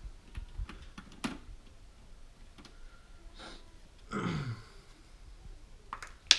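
Light clicks and taps from the metal retention lever and load plate of a motherboard CPU socket being worked as an Intel Core i7 is fitted, with one sharp, loud click near the end.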